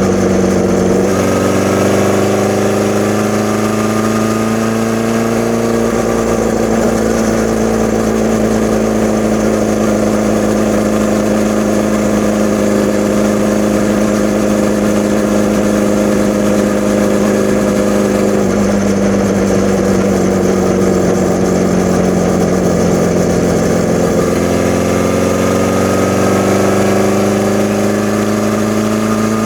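1981 Honda CB650's air-cooled inline-four running through a Hindle 4-2-1 exhaust, fed by Mikuni VM34 carburettors. The engine note holds fairly steady, drops a little past the middle, then climbs again near the end as the throttle opens.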